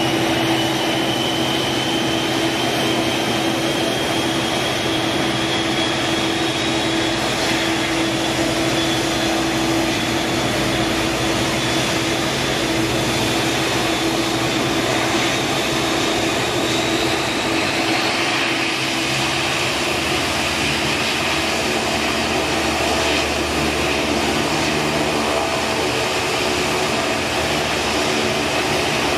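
Fokker 50's turboprop engines running during start-up: a loud, steady turbine whine with propeller noise. A high whine climbs slowly in pitch over the first half, and the tone of the engines changes about two-thirds of the way through.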